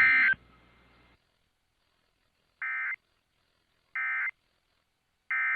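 Emergency Alert System end-of-message data bursts: short, harsh two-tone digital buzzes that close the tornado warning. One comes at the very start, then three more follow, evenly spaced about 1.3 seconds apart.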